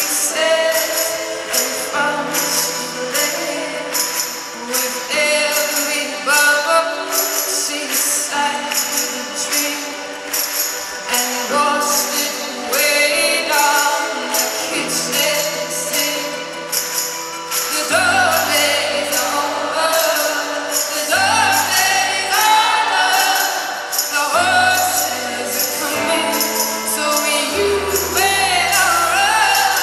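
Live rock band music with a woman singing, heard from the arena crowd: a steady high percussion beat runs throughout, and a deep bass line comes in about two-thirds of the way through.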